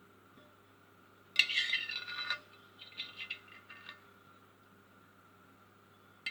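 Kitchenware and glass clinking while a small onion is pressed for its juice. There is a loud clatter about a second and a half in lasting about a second, then a few lighter clinks, and a faint steady hum underneath.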